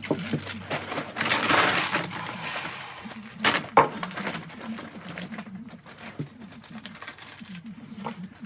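Animal feed pellets scooped and poured into a bag, a rattling rush of grain that comes twice, the second ending in one sharp click; pigeons coo low in the background.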